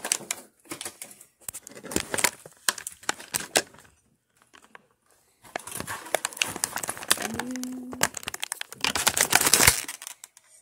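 Clear plastic packaging bag crinkling and crackling as it is handled and pulled at to open it, in bursts with a pause about four seconds in and the loudest crinkling near the end.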